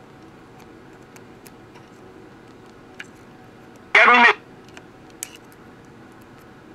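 Philco transistor radio's speaker giving a steady hiss with scattered faint clicks while the core of its IF transformer is pressed in, the transformer suspected of silver mica disease in its internal capacitor. A short, loud burst of voice breaks in about four seconds in.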